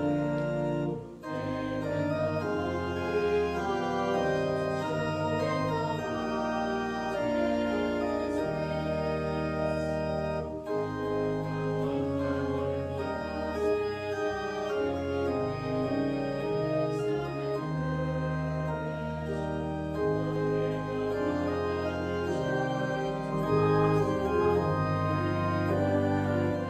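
Organ playing a slow piece of church music in held chords over a stepping bass line, with a brief break between phrases about a second in.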